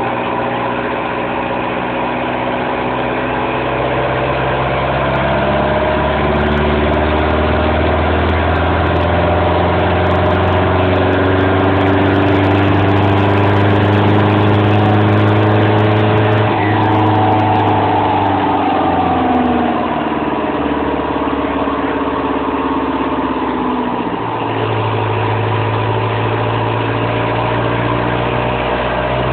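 Cummins 4BT four-cylinder turbo-diesel in a 1995 Ford Ranger making a full-load pull on a chassis dyno: the engine note climbs steadily for about sixteen seconds, then the throttle comes off and the revs fall away over several seconds before settling to a steady lower run near the end.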